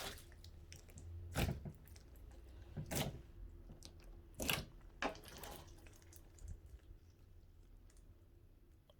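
Clear slime being squished and pressed by hand, giving a few short squelching pops about a second and a half apart that die away in the last few seconds.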